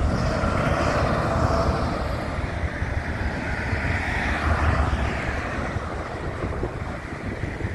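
Road traffic passing close by: a semi truck going past, then a couple of cars, over a steady rumble, with wind buffeting the microphone.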